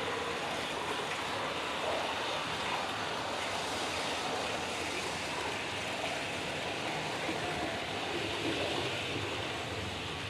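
Steady, dense rushing noise texture of an electroacoustic piece, even in level throughout, with a faint low hum beneath it.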